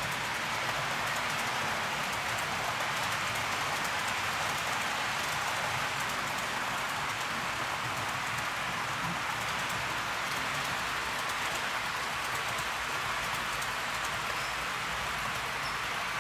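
HO scale model trains running on the layout: a steady rolling hiss of small metal wheels on the rails.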